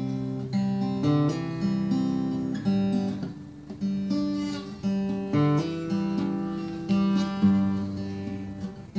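Acoustic guitar played alone, chords with notes picked in turn and ringing over each other in a steady rhythm.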